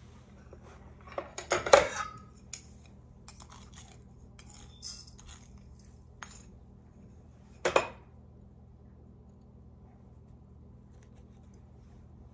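Metal spoons clinking and clattering against a stainless steel mixing bowl and small serving dishes: a burst of clatter a second or two in, a few lighter clicks, and one more sharp clink past the middle.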